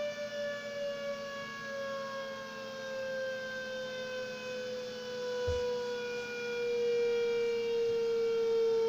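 Klaxon CS8 siren sounding one unbroken steady tone, the all-clear signal, its pitch sliding slowly lower and its volume growing towards the end. A brief low thump about halfway through.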